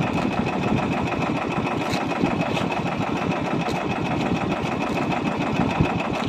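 Outrigger fishing boat's engine running steadily underway, a rapid even pulsing with no change in speed.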